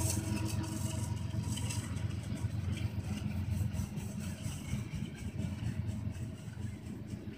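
Freight train boxcars rolling past: a steady low rumble of steel wheels on rail that slowly grows quieter.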